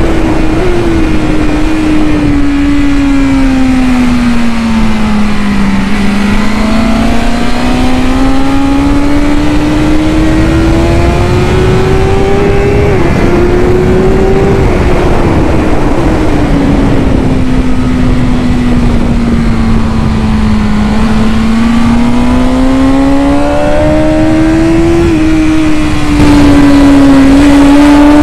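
A 2019 BMW S1000RR inline-four with an Akrapovic exhaust, heard onboard at track speed over heavy wind rush. The engine note falls slowly as the bike slows, then climbs again as it accelerates, twice over.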